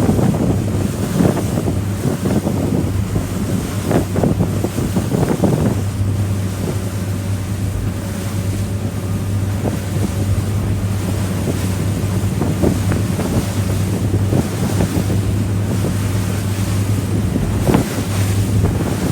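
Boat underway: a steady low engine drone under wind buffeting the microphone and the rush of water, with gusts swelling now and then.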